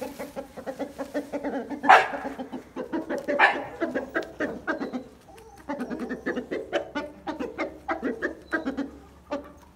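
Aseel chickens clucking in quick, short calls as they feed on scattered bread and grain, with two louder calls about two and three and a half seconds in.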